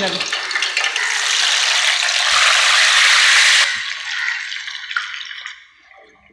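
Marinated soya chunks hitting hot oil in a frying pan, sizzling loudly. After about three and a half seconds the sizzle dies down and fades away.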